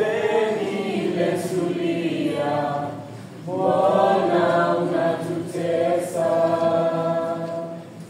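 A group of voices singing a slow, unaccompanied chant-like song in long held notes. It comes in three long phrases, with short breaks about three seconds and five and a half seconds in.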